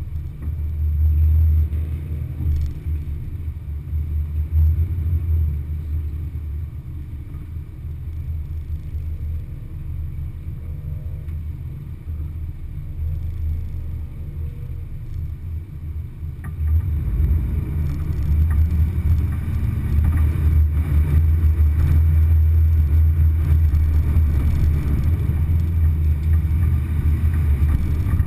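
Low, steady rumble of an off-road vehicle driving slowly over a rutted, muddy dirt trail, heard from on board. It gets noticeably louder a little past halfway.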